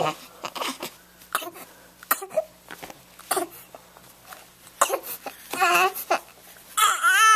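Newborn baby fussing with short whimpers and coughing grunts, then breaking into a loud, sustained wail near the end, upset at having his diaper changed.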